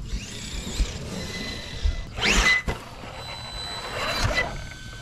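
RC monster truck's Hobbywing XeRun XR8 sensored brushless motor and drivetrain whining in bursts under throttle, the pitch sweeping up and down, loudest about two seconds in, with a few low thumps from the truck on the grass.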